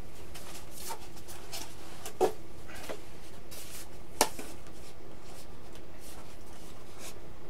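Styrofoam packaging and a foam model-airplane wing being handled: faint rubbing of foam on foam, with two short sharp clicks, about two seconds in and about four seconds in.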